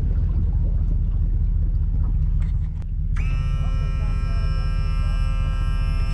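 A steady low rumble, the loudest sound throughout. About three seconds in, a sustained chord of many steady tones comes in suddenly and holds.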